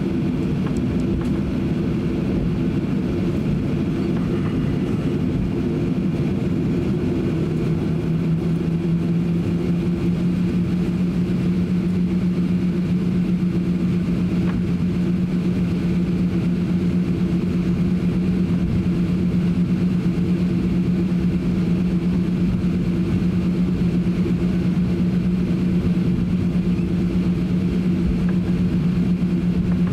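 Jet airliner taxiing, heard from inside the passenger cabin: a steady engine and cabin drone, with a strong low tone that comes in about eight seconds in and holds.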